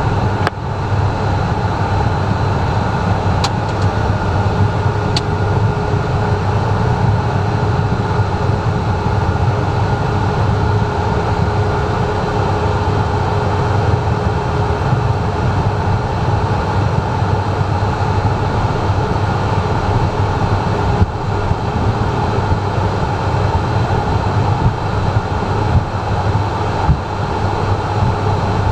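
Cockpit noise of a Cessna Citation M2 taxiing, its twin turbofan engines at idle: a steady low rumble with faint constant whining tones above it.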